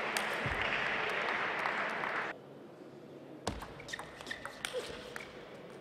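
Crowd applauding a won table tennis point, cut off abruptly about two seconds in. Then come the sharp clicks of a celluloid table tennis ball bouncing on the table and being struck by a paddle, a strong click followed by a run of lighter ones.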